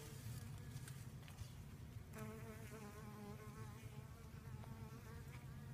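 Faint buzzing of a honey bee's wings, a wavering hum that swells for a couple of seconds in the middle, over a low steady rumble.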